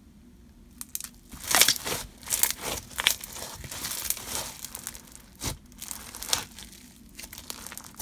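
Bingsu-bead slime squeezed and kneaded by hand, its beads crackling and crunching in irregular bursts that start about a second in.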